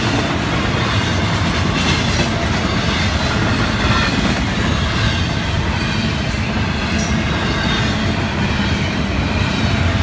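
Double-stack intermodal freight train rolling past at a grade crossing: the steady rumble of the container well cars' wheels on the rails, with a few sharp clacks.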